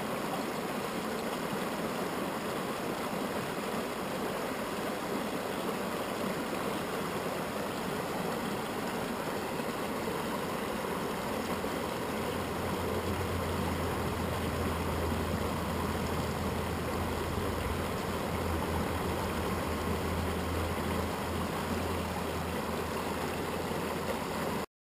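Truckee River water rushing steadily over a shallow rocky riffle. Around the middle a low hum joins in, then fades out a couple of seconds before the end.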